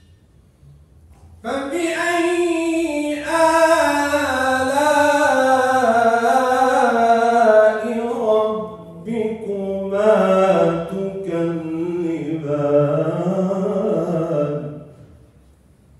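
A man reciting the Quran in the melodic tajweed style: long chanted phrases of held, gliding notes. The recitation starts about a second and a half in, pauses briefly for breath about halfway, and ends shortly before the close.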